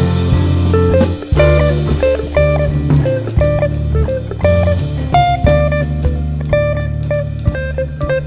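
Background music: a guitar-led blues-style tune with bass and a drum kit.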